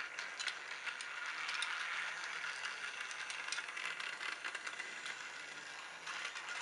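Battery-powered Chuggington toy locomotive running on plastic track: its small motor and gears whirring, with a steady rattle and scattered clicks from the wheels on the rails.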